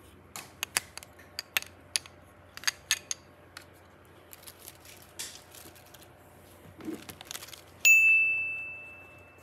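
A run of small, sharp clicks and taps of hard objects being handled, then about eight seconds in a single bright ding that rings on one clear tone and fades away over about a second and a half.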